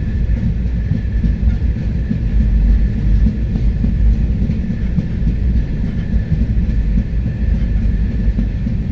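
Palace on Wheels train running on the rails: a loud, dense low rumble, with a faint steady high whine over it.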